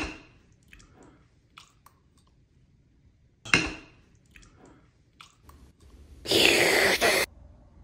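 Eating sounds: a few light spoon clicks, a short slurp about three and a half seconds in, then about a second of loud slurping as liquid is drunk straight from a bowl.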